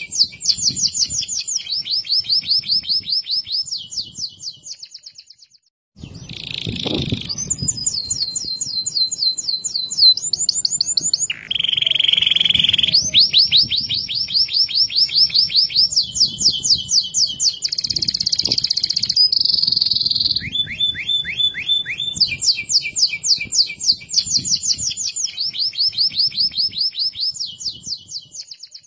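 Domestic canary singing a clear, loud song of rapid trills: each run is a fast string of repeated notes, and the note type switches every second or two. The song breaks off for about a second some five seconds in, then carries on without stopping.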